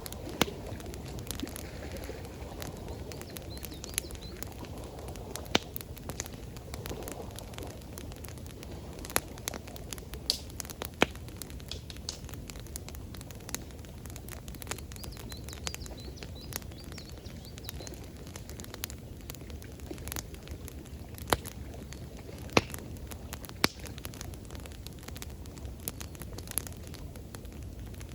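Wood campfire crackling, with sharp pops at irregular intervals over a steady low rush of flowing water.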